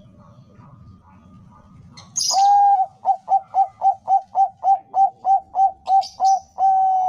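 Zebra dove (Bangkok perkutut) singing. It opens with a long coo, then a quick run of short, even, staccato coos at about three a second, and ends on a long held coo. Brief high chirps from another bird come at the start of the song and again near the end.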